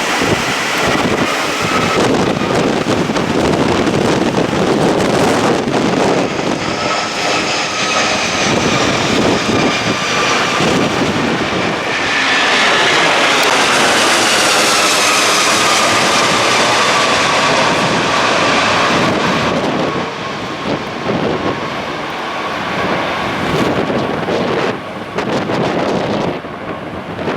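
Jet airliner's engines at go-around thrust as it passes overhead: a loud whine and rush that builds, is loudest around the middle, and falls in pitch as the aircraft goes by, then eases off.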